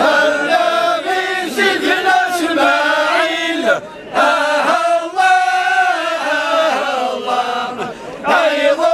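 A group of men chanting a Kabyle dhikr together in unison, voices only, in long held phrases with a brief break about four seconds in.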